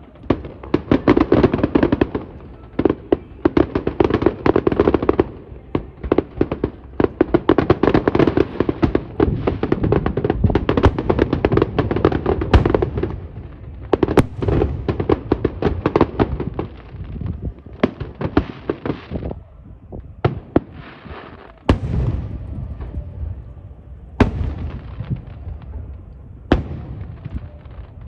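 Aerial fireworks going off: a dense barrage of rapid bangs and crackling for roughly the first half, thinning out to a few separate booms near the end.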